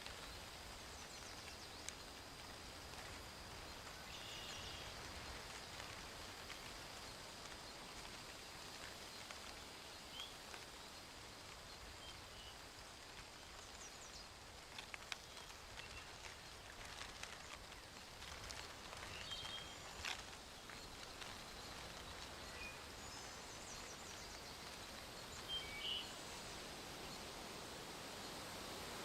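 Quiet outdoor nature ambience: a steady background hiss with a faint high steady tone, scattered short high chirps from birds, and a few soft clicks.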